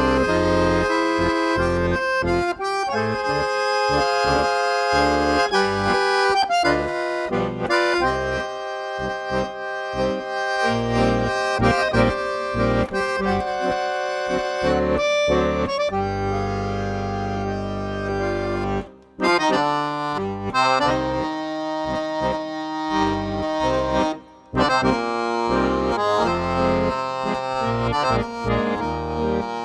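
Instrumental music with held chords under a melody of sustained notes, with two brief breaks about 19 and 24 seconds in.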